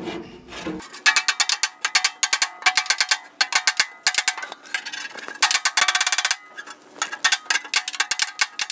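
Hammer rapidly tapping steel sheet metal of a 1949 Farmall Cub, beating a low spot beside a fresh patch weld back up; each blow rings with a metallic pitch. Several strikes a second, in three runs with short pauses between them.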